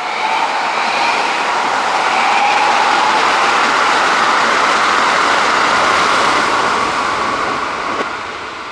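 An electric commuter train passing close by, played backwards. The noise builds quickly, holds loud for about five seconds with thin whining tones over the rumble, and fades near the end.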